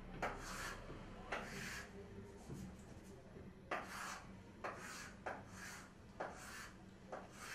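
Chalk drawing straight lines on a chalkboard: a series of short scratchy strokes, each under half a second, with short gaps between them.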